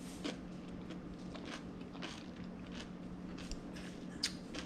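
Close-up crunching of a crisp mango habanero pickle being chewed, about two crunches a second, with a sharper crunch near the end.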